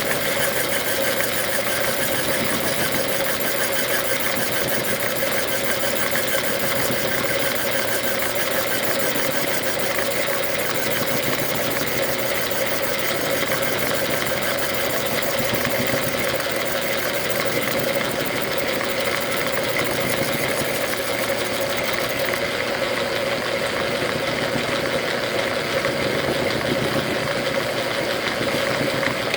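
Logan metal lathe running under power during a single-point threading pass: a steady mechanical hum and whine with gear and belt chatter. The higher hiss drops away about three-quarters of the way through.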